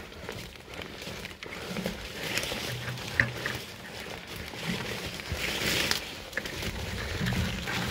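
Footsteps pushing through leafy forest undergrowth: irregular rustling of leaves and stems brushing past, with low thuds of steps. A sharp snap or click about three seconds in.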